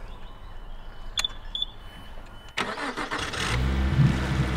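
Honda 90 VTEC four-stroke outboard being started by key: two short beeps, then the starter cranks briefly and the engine catches at once, settling into a steady idle for the last second or so.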